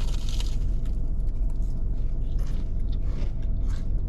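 Steady low rumble of a car idling, heard from inside the cabin, with a few short crackling rustles as a fried vegetable samosa is bitten into and handled.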